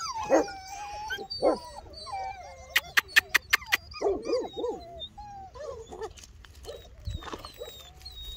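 Dogs whining and yipping in short, high, sliding cries, with a quick run of sharp clicks about three seconds in.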